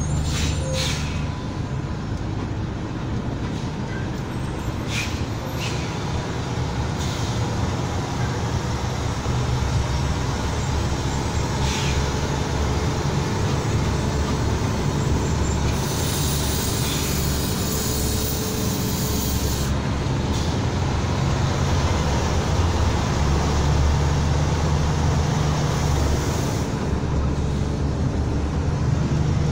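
Steady low engine drone and road noise heard from inside a heavy vehicle's cab on a mountain descent, with a hiss lasting about four seconds just past the middle.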